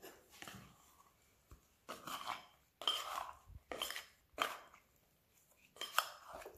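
Silicone spatula scraping soft, sticky bread dough out of a glass mixing bowl: a series of short scrapes against the glass, about half a dozen strokes.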